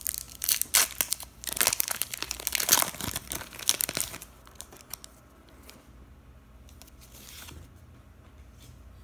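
A Pokémon TCG booster pack's foil wrapper crinkling as it is torn open, with dense crackling for about the first four seconds, then only faint rustling.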